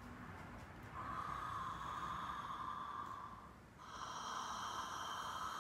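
A woman breathing out long and slowly onto a rose quartz crystal cupped in her hands at her lips, giving a breathy rush of air. About three and a half seconds in there is a short pause, then another long breath.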